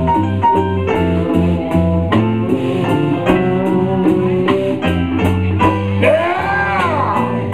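Live blues band playing an instrumental passage: a bass line and a steady drum beat under guitar and keyboard chords. Near the end a lead note glides up and back down.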